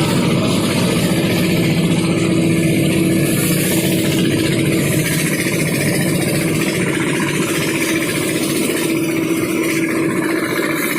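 Engine-driven rice thresher running steadily at a constant speed, with an even hum.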